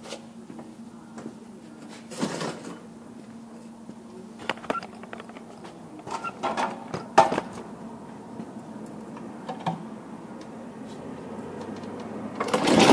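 Scattered knocks and clicks as a two-stage snowblower is set back down from its service position onto its wheels and handled, with a louder burst of noise near the end.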